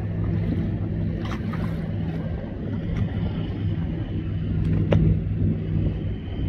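Motorboat under way: a steady low engine drone with water rushing past the hull, and a couple of brief sharp ticks.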